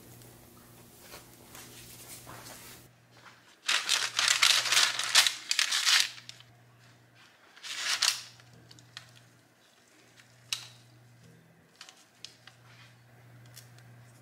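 A rasping, tearing sound lasting about two seconds, then a shorter one about two seconds later, with a few scattered clicks over a faint steady low hum.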